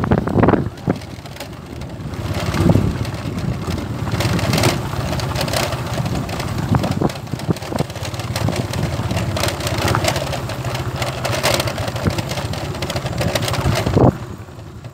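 A vehicle's engine running steadily while travelling, with road and wind noise and several sharp knocks and rattles.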